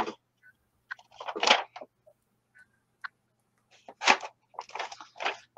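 A few short rustles and scratches of paper being handled and a felt-tip marker drawing on paper, with quiet gaps between and a faint steady low hum underneath.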